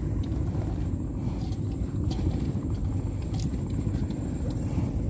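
Wind buffeting the microphone: a steady, irregular low rumble.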